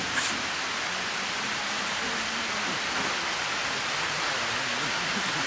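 Steady rain falling, an even hiss. Just after the start, a brief crinkle of a plastic sack being shaken out.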